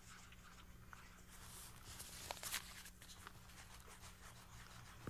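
Faint scratching of a wax crayon drawing on paper, with a few light ticks, over a low steady hum.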